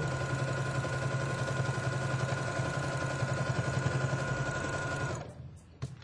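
Electric sewing machine stitching through quilted fabric at a steady speed, its motor giving a low hum and a steady whine. It stops about five seconds in.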